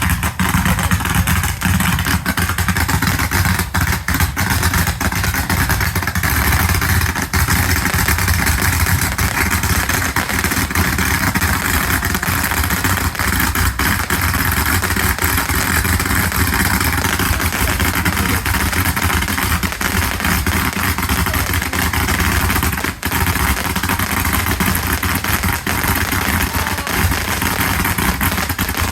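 A dense fireworks barrage: unbroken crackling over a low rumble.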